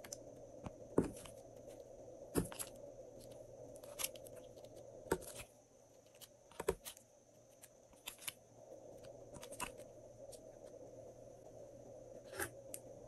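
Fingers pressing and placing soft pieces of clay and slime into a glass tray, making scattered light taps and sticky crackles, about nine in all, over a faint steady room hum.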